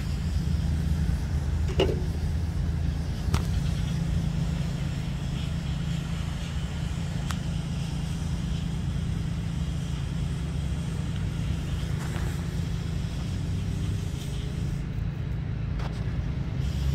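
Steady low rumble of a running motor vehicle engine or nearby road traffic, unchanging throughout, with a few faint clicks.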